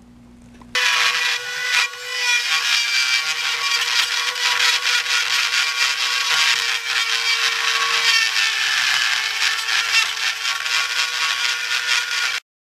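Dremel rotary tool running with a steady whine while its bit grinds a cast-in arrow marking off a spoke of a Kawasaki Ninja front wheel, stripping the wheel ahead of primer. It starts just under a second in, dips briefly around two seconds, and cuts off suddenly near the end.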